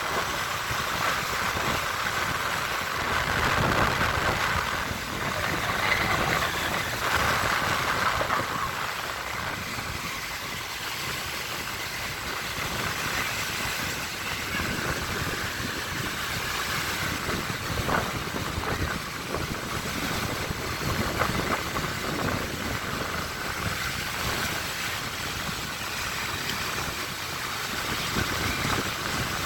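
Baltic Sea waves washing onto the shore, a continuous rushing that swells and eases every few seconds.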